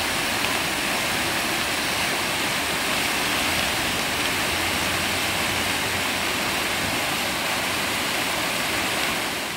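Flood-swollen river rushing and churning in rapids through the piers of a debris-clogged bridge after heavy rain: a steady, unbroken rush of water.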